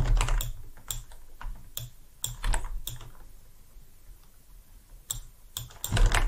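Irregular clicking from working a computer's input devices, a few clicks a second, with a lull in the middle and a denser cluster near the end.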